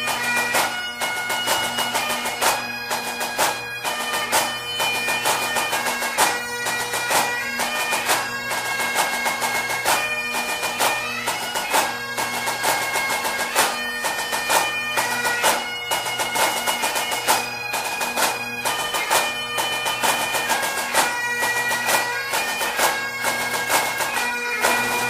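Pipe band music: Highland bagpipes playing a melody over their steady drone, with regular drum strikes.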